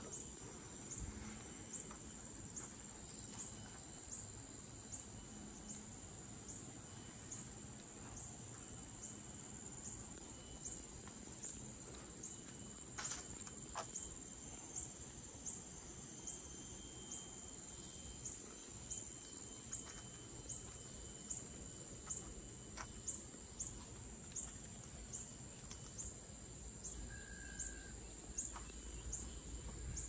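Forest insects calling: one chirps in a steady, even rhythm of short high-pitched chirps, about one and a half a second, over a continuous high-pitched insect drone.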